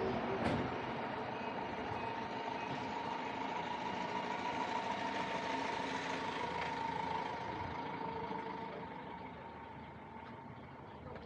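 Panel van's engine running close by, a steady hum with a thin whine, fading away over the last few seconds. A sharp click just after the start.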